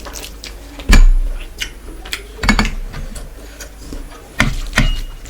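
Close-miked eating sounds: chewing and smacking with many small clicks, broken by a few sharp knocks with a dull thump, the loudest about a second in.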